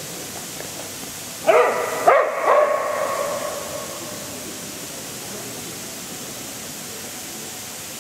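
Steady hiss of sprinkler water spray, with three short high-pitched cries about a second and a half in, the last trailing off over about a second.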